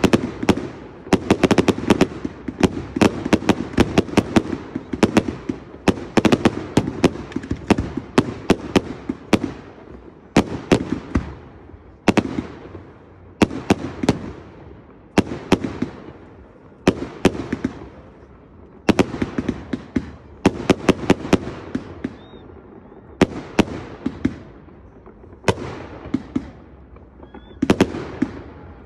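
Aerial fireworks bursting in rapid volleys: clusters of sharp bangs with echoing after them, broken by short lulls of a second or two.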